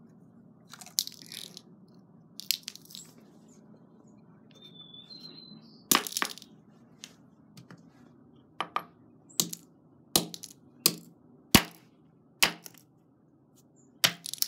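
Hammer blows on earbuds lying on a concrete floor: sharp single strikes, a few spread out at first, then a steady run of about one every three-quarters of a second over the last six seconds.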